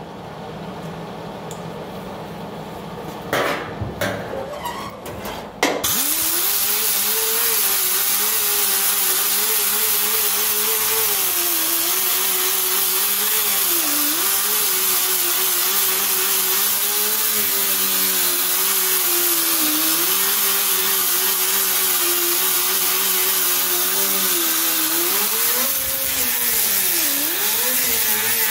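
A few knocks, then about six seconds in an Ingersoll Rand pneumatic cut-off tool starts and runs steadily, its cut-off wheel cutting into a car body's sheet-steel seam, the pitch dipping each time the wheel bites. Near the end the sound changes as an air-driven disc grinds the panel.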